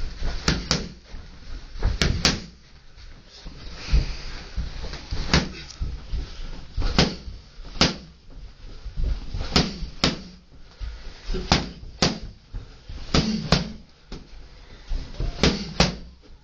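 Boxing gloves smacking hand-held focus pads: sharp slaps, mostly in quick one-two pairs, coming every one and a half to two seconds.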